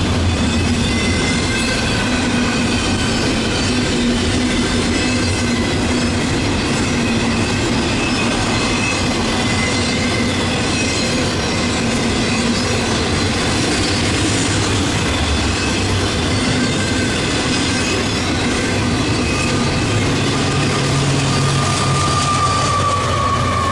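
Double-stack container well cars rolling past at speed: steady wheel-and-rail rumble with clickety-clack and a thin, wavering wheel squeal. Near the end a diesel locomotive at the rear of the train passes, adding a deeper engine note and a steady whine.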